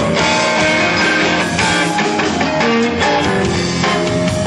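Live rock band playing, electric guitar to the fore over drums.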